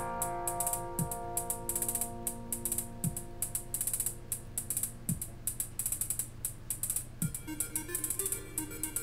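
Electric guitar chord on a capoed gold-top Les Paul-style guitar ringing out and slowly fading, then new picked notes starting near the end. A fast, steady high ticking and a short low thump about every two seconds run underneath.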